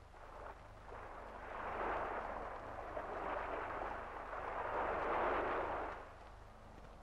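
Sea surf breaking and washing up a sandy beach in repeated swells, each rising and falling over a second or two. A steady low hum runs underneath.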